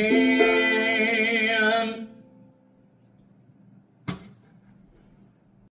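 Final ukulele chord ringing out under a held sung note with vibrato, fading away about two seconds in. A single sharp click about four seconds in.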